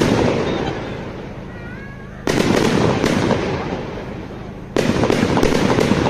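Aerial firework shells bursting: two sharp bangs about two and a half seconds apart, each followed by a couple of seconds of dense crackling from crackling stars that fades away.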